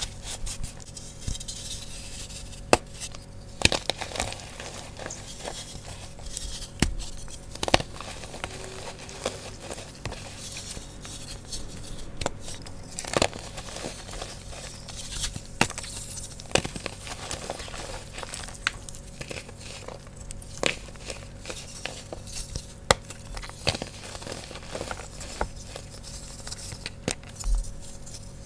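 Fresh blocks of Sports Chalk gym chalk crushed and crumbled by hand: dry crunching and crumbling, with sharp snaps of breaking chalk at irregular intervals.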